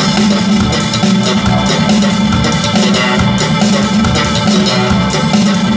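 Music with percussion and a steady beat, played back through a pair of Cabasse active spherical loudspeakers in a demo room.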